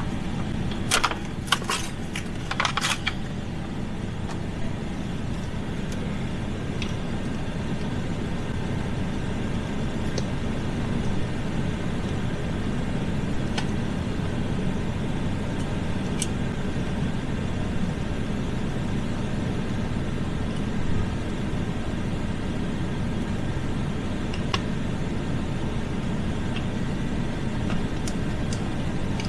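A steady low rumble throughout, with a cluster of sharp clicks and taps about one to three seconds in and a few faint ticks later: a Phillips screwdriver and hard plastic center-console parts being handled.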